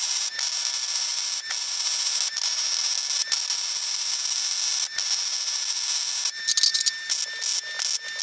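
MIG welding arc crackling and hissing steadily on a steel base plate, with a few brief breaks. After about six seconds the sound turns choppy and broken up.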